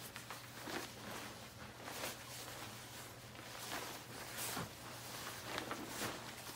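Rustling of a waterproof poncho's fabric being pulled and smoothed into place, a string of soft irregular swishes.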